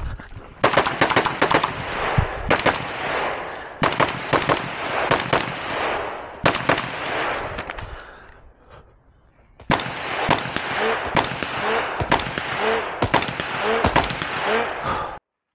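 Rapid competition gunfire: quick strings of shots, each trailed by echo. A pause of about a second and a half comes a little past halfway, then more rapid shots, cutting off suddenly near the end.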